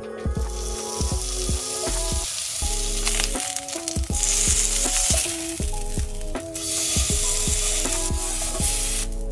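Steak and then a strip of tuna sizzling as they sear in a hot nonstick frying pan, with a short break about six and a half seconds in as the second piece goes on. Background music with a steady beat plays underneath.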